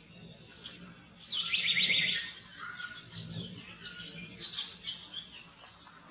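A loud, high-pitched animal call made of a rapid run of short falling notes, starting about a second in and lasting about a second and a half. Fainter chirps follow later.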